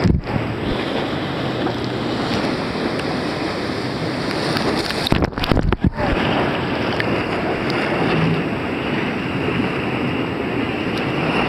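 Whitewater rapid rushing and crashing around the bow of an inflatable raft, with waves splashing straight over the microphone. The sound briefly cuts out and muffles a couple of times about five to six seconds in as water washes over it.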